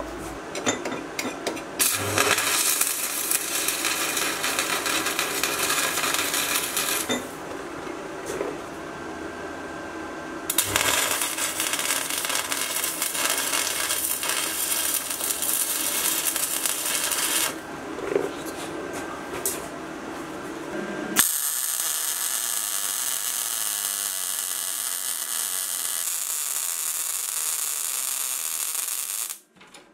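Stick-welding arc crackling and sizzling as steel plate is tacked and welded, in several runs of a few seconds each with short pauses between them. The last, longest run sounds thinner and hissier.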